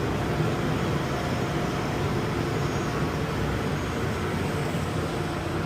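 Steady mechanical drone of boiler-room equipment running, an even, unchanging hum and rush.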